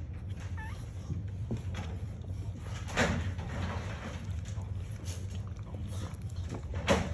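Newborn French Bulldog puppies snuffling in their sleep: a short faint squeak about half a second in, and two brief louder snuffles about three seconds in and near the end, over a steady low hum.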